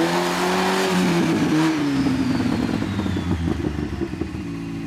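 Modified off-road trial 4x4's engine held at high revs under load as the truck crawls over an obstacle, easing off about two seconds in and settling to a steady idle near the end.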